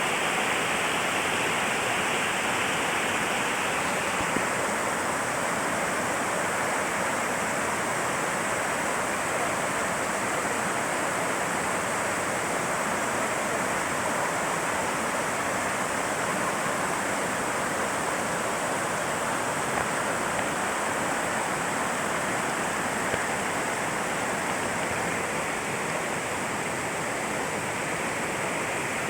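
Waterfall rushing and splashing, a steady dense roar of falling water that holds even throughout.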